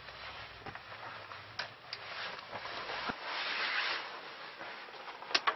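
Shirt fabric rustling as it is pulled off over the head, loudest a little after the middle, with a few light clicks and a sharper pair of clicks near the end.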